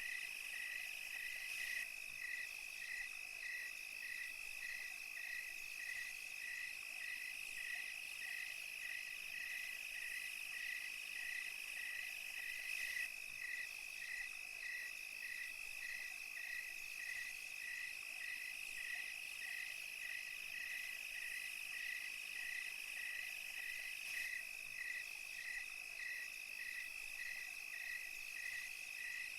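Night insect chorus in the countryside: a continuous high trill of insects with a cricket chirping steadily just below it, about three chirps every two seconds.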